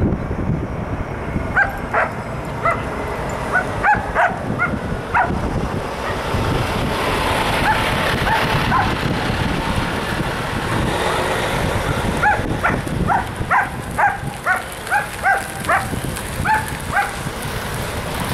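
A dog barking in short, repeated barks, then a heavy-duty tow truck driving past with a rising and fading rush of engine and tyre noise, then another run of barks.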